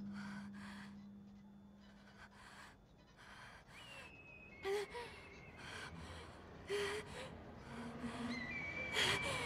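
A young woman's shaky breathing and gasps, quick breaths that grow louder toward the end, some with a faint voiced catch. A low held tone fades out in the first second or two.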